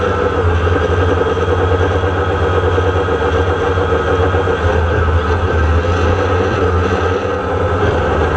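DJI Phantom quadcopter's motors and propellers running in flight, heard from on board: a loud, steady buzz with a thin high whine over it.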